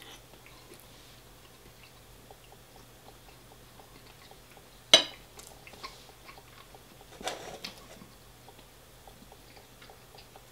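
Eating sounds: faint chewing and small clicks, with one sharp click about halfway through and a brief clatter a couple of seconds later.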